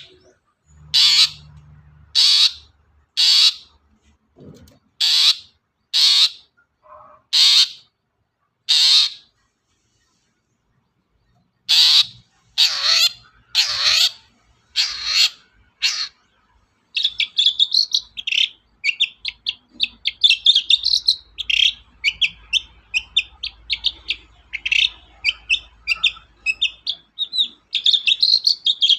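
Long-tailed shrike (cendet) singing: first a series of separate harsh calls about one a second, with a short pause partway, then from just past halfway a fast, unbroken run of varied short chattering notes.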